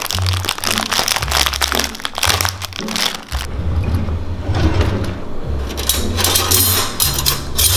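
Plastic cookie packaging crinkling and crackling as it is torn open, for about three seconds. Then a kitchen drawer slides open and metal cutlery clinks as pieces are picked out of the tray. Low bass notes of background music play underneath.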